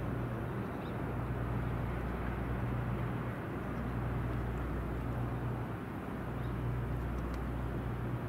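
Boat engine running with a steady low drone that swells and dips slightly, under an even rush of wind and water.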